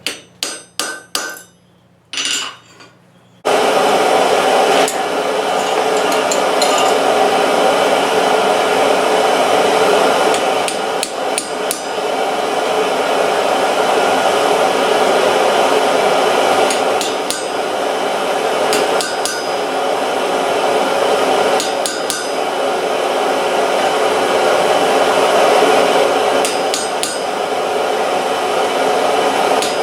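Hammer blows on hot steel at an anvil: a handful of separate strikes, then from about three and a half seconds a loud, continuous run of clanging, ringing hammering.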